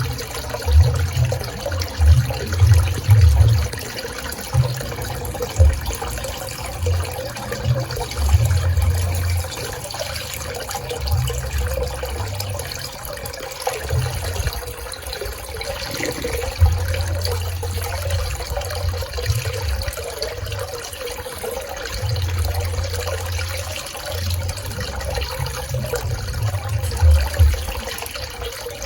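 Swimming pool water flowing and splashing steadily, with an uneven low rumble coming and going underneath.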